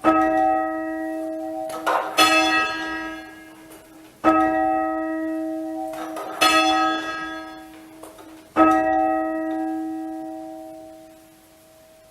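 A single half-muffled church bell rung full circle at a slow, steady pace: five strikes about two seconds apart, each ringing on and dying away. The strokes alternate between a clear handstroke, where the bare clapper strikes the bell, and a duller backstroke, where the leather-capped side of the clapper strikes.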